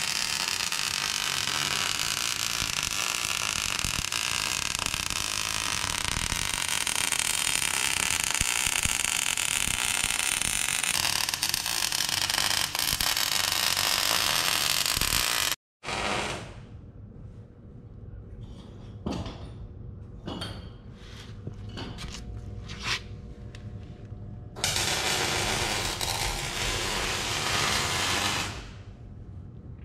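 Wire-feed (MIG) welder arc crackling steadily while welding steel brackets to a frame, one long bead of about fifteen seconds. After an abrupt break come a few scattered light clicks and taps, and then a second bead of about four seconds near the end.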